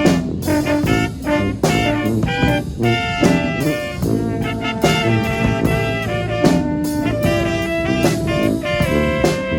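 A small four-horn brass band playing a tune live, several horns in moving lines over a steady beat of sharp hits.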